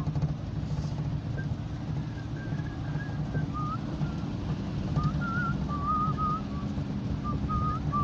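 A person whistling a wavering tune in short phrases, heard inside a car's cabin over the steady low rumble of the engine and tyres on a gravel dirt road.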